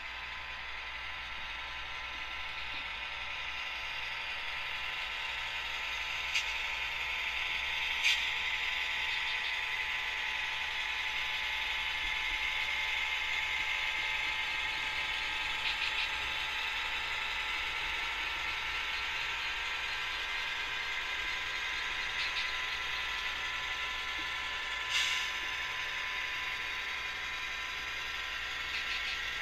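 Model train running on its layout: a steady whir of locomotive motors and gearing, with a few sharp clicks from wheels over the track.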